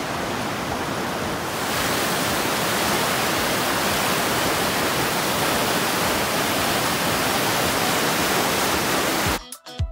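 Fast mountain river rushing over rapids, a steady, even wash of white water that grows a little louder about two seconds in. Music with a beat cuts in near the end.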